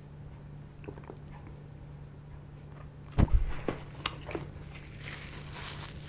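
A paper tray of fried chicken bites set down on a cardboard pizza box: a dull thump about three seconds in, then a few light knocks, followed by the soft rustle of a paper tissue. A steady low hum runs underneath.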